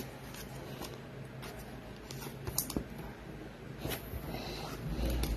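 Football trading cards being handled: faint scattered clicks and light rustles of card stock as a card is turned over between the fingers, with a couple of sharper ticks about two and a half and four seconds in.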